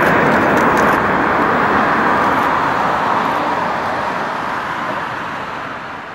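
Boeing 787-9 airliner's Rolls-Royce Trent 1000 jet engines with a loud, steady roar as it lands, fading toward the end as it rolls out down the runway.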